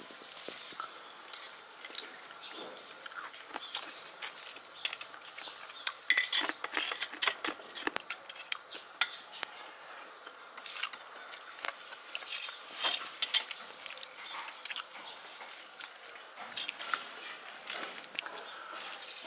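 Irregular clinks and clicks of metal spoons against ceramic plates and bowls during a meal, busiest around the middle.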